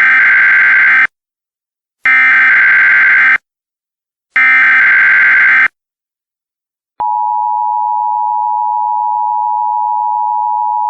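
Emergency Alert System SAME header: three bursts of digital data tones, each about a second long and about two seconds apart. About seven seconds in, the steady two-tone EAS attention signal starts and keeps sounding.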